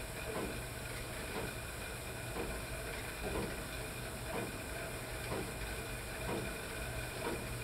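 Cycle ergometer being pedalled steadily under a set resistance: a steady hiss from the flywheel with a soft swish about once a second as the pedals turn.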